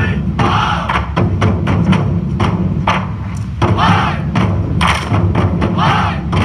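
Background music with a steady thumping beat.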